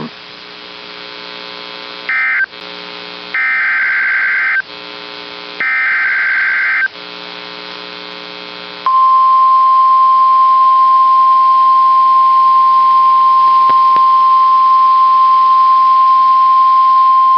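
NOAA Weather Radio alert signal: three short bursts of high-pitched warbling SAME digital header data over a low radio hum, then a steady single-pitch 1050 Hz Warning Alarm Tone. The alarm tone starts about nine seconds in and holds, announcing a new warning.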